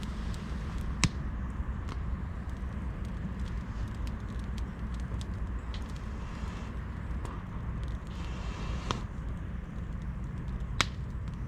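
Freshly lit wood campfire crackling: scattered small clicks with sharp pops about a second in, near nine seconds and near eleven seconds, over a steady low rumble.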